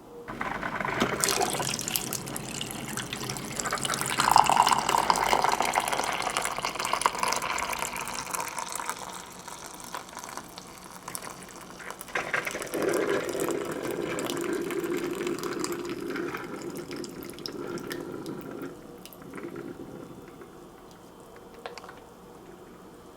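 Liquid being poured in a stream, in two pours: one lasting most of the first ten seconds, then a second, lower-sounding pour from about twelve to nineteen seconds.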